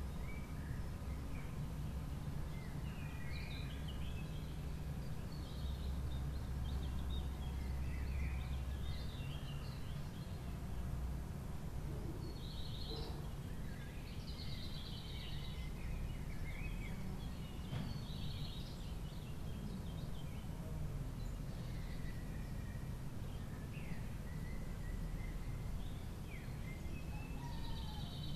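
Outdoor ambience: a steady low rumble with short bird chirps scattered throughout.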